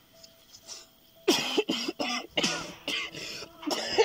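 A man coughing hard in a rapid fit of harsh, voiced coughs that starts about a second in, after drawing in smoke.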